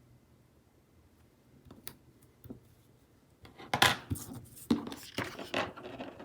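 Small desk-handling sounds of stationery: a few light clicks, then about halfway through a run of loud, irregular rustling, scraping and knocking as paper and sticker materials are handled.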